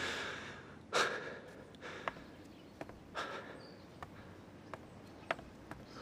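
Wooden Wing Chun training dummy struck by hand: sparse, sharp wooden knocks at uneven intervals. There are two forceful breaths near one and three seconds in. A music tail fades out at the very start.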